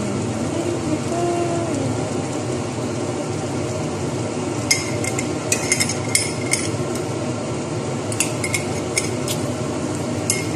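A utensil stirring a coconut-milk stew in an aluminium pot, clinking and scraping against the metal in short bursts about halfway through and again later, over a steady background noise.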